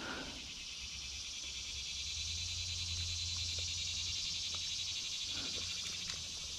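A steady chorus of insects, a dense high-pitched buzz with a fast pulsing texture that swells a little toward the middle, over a low steady rumble.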